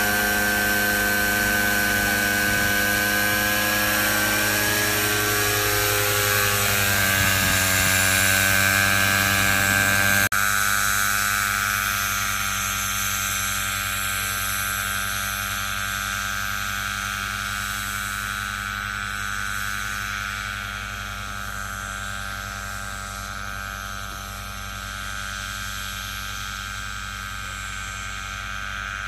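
Variable-pitch multicopter flying, its rotors making a steady hum of many tones. The pitch wavers for a few seconds. After a brief click about ten seconds in, the hum slowly fades as the craft flies away.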